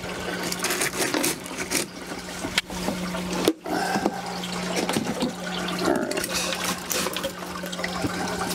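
Water sloshing and trickling over a steady low hum, as in a hydroponic recirculating deep water culture system, while flexible drip tubing is handled over the buckets.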